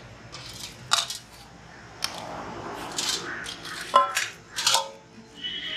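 Stainless steel plates, bowls and serving spoons clinking and scraping as food is dished out: a handful of sharp metallic clinks, one about four seconds in ringing briefly. Background music comes in near the end.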